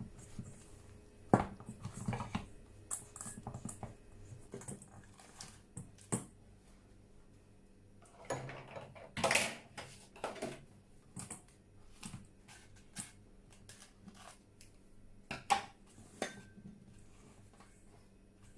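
Irregular knocks, clinks and scrapes of kitchen utensils and bowls being handled, with a sharp knock about a second and a half in, a longer run of handling noise around the middle, and another sharp knock near the end.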